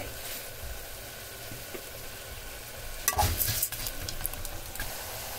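Vermicelli frying in oil in an aluminium pot, a steady sizzle as it toasts toward golden. About three seconds in, a metal spoon stirs it, scraping against the pot.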